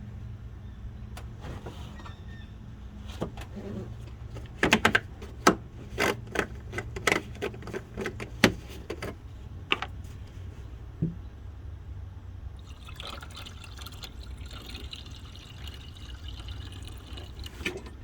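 Clicks and knocks of a cap and container being handled, then, from about 13 seconds in, coolant pouring steadily from a jug into the truck's cooling system to top it off. A low steady hum runs underneath.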